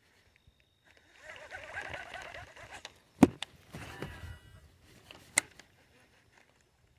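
Close handling noise from an angler moving about in a small boat: rustling, then two sharp knocks, the louder about three seconds in and another about two seconds later.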